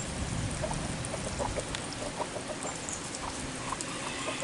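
Backyard chickens clucking, short clucks at irregular intervals from several birds.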